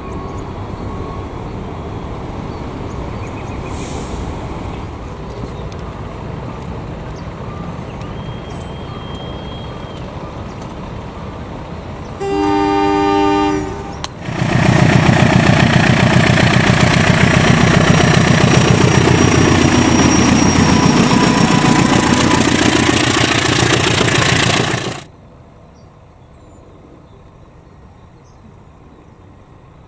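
KAI diesel locomotives and trains heard across several cuts: a steady engine and rail rumble, then a short horn blast of several tones together about twelve seconds in, then a much louder close-up train rumble for about ten seconds that cuts off suddenly, followed by a quieter distant rumble.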